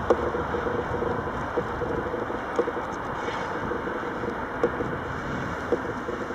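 MaK class 6400 diesel-electric shunting locomotive running slowly past. A steady low engine and running noise, with a few short squeaks scattered through it.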